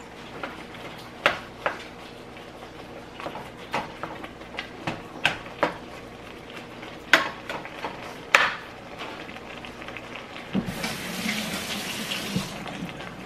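A utensil knocking and scraping against a stainless steel pot while raw ground beef is chopped up, in irregular sharp clinks about once a second. Near the end a tap runs for about two seconds, starting and stopping abruptly.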